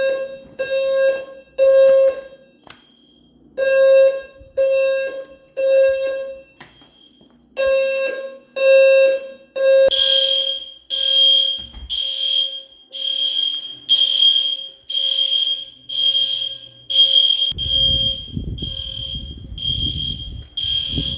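Apartment building fire alarm sounding: a low horn tone in the three-beep evacuation pattern, three beeps a second apart and then a pause, set off by a neighbour's sprinkler system. About halfway in, a higher-pitched beeping takes over at a steady, quicker pace, and a low rumbling noise joins it near the end.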